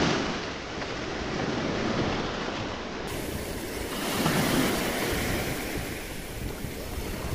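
Small waves breaking and washing up a sandy shore, with a wave surging louder about four seconds in.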